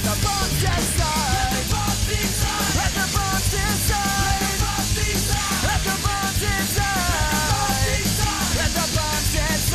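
Punk rock music: a full band with a steady beat and a wavering lead melody, with no words sung.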